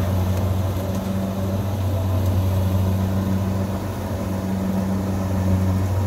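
Kubota DC70 Plus combine harvester's diesel engine running steadily with a low hum as it cuts flattened rice.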